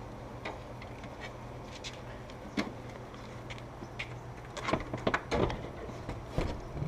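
Scattered knocks and scrapes of an LG window air conditioner's housing as it is handled and bumped into the camper wall opening, a single knock about two and a half seconds in and a cluster of knocks about two-thirds through, over a low steady hum.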